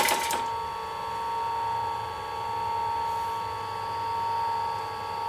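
Industrial sewing machine running: a quick run of fast, even stitching stops within the first half second, then the machine's electric motor keeps running with a steady high hum while the needle stands still.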